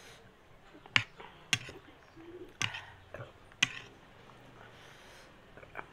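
Close-up eating sounds: about half a dozen sharp clicks and crunches, spaced unevenly, from a metal spoon working a plate of crunchy chatpate and from mouthfuls being chewed.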